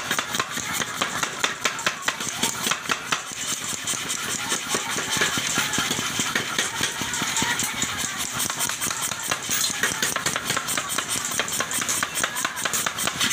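Hand hammer striking a red-hot steel hoe blank on an anvil: rapid, ringing metal-on-metal blows, several a second, as the hot blade is forged to shape.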